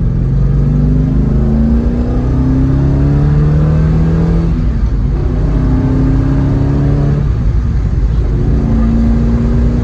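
Alfa Romeo Montreal's 2.6-litre quad-cam V8 pulling under acceleration, heard from inside the cabin. Its pitch rises through each gear and drops back at upshifts about four and a half and seven seconds in, over steady road and wind rumble.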